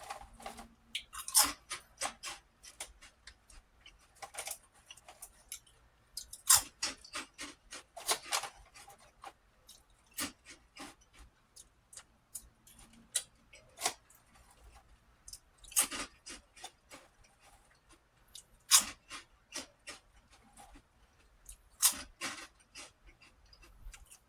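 A person chewing and crunching crisp prawn crackers: irregular crackly crunches, with a louder bite every two to three seconds.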